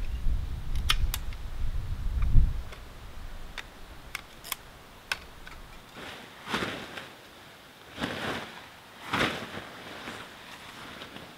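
A low rumble with scattered light clicks and clinks of camping gear being handled. Then three swishes of tent fabric as a tipi hot tent is shaken out and spread on the ground.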